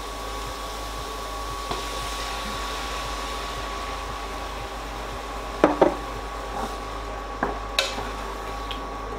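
Steady whir with a thin high whine from an induction hob heating a stainless steel pot, joined by a few sharp knocks against the pot about six and eight seconds in.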